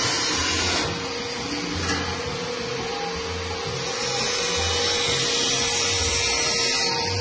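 Electric motor of a stainless-steel dough mixer running steadily with a constant whine. It dips slightly in level about a second in and comes back up around four seconds.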